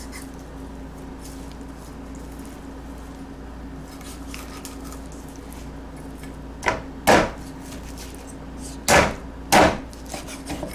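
Meat cleaver chopping a skinned squirrel carcass on a wooden cutting board: four heavy strikes in two pairs in the second half, each a sharp thud of the blade cutting through into the wood.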